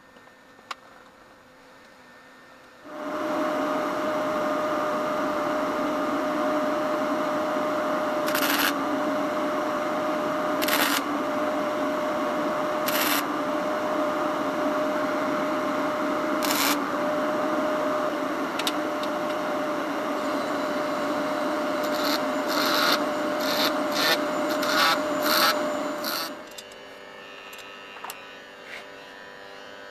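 Electric welding arc burning steadily for about twenty seconds, starting and stopping abruptly, with scattered sharp pops that grow more frequent near the end. A low hum, from the welder, remains after the arc stops.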